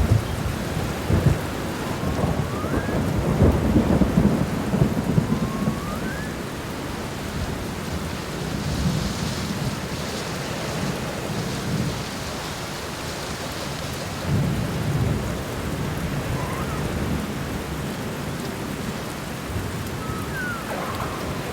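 Steady heavy rain with rolls of thunder rumbling, the loudest in the first few seconds and another about two-thirds of the way through. A few faint short rising chirps sound over the rain.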